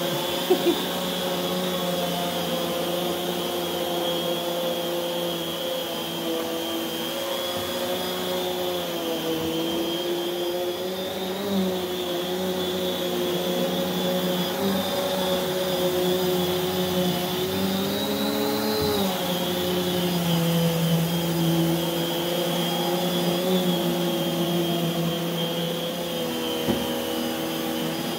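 Prolux X8 Elite backpack vacuum running steadily with its EBK360 power nozzle pushed over carpet, a constant motor whine whose pitch wavers slightly twice. A couple of short light knocks, one just after the start and one near the end.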